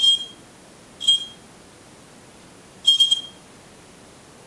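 Three short, high-pitched electronic beeps from the speaker of a PIR motion detector audio test setup. The second comes about a second after the first, and the third about two seconds later.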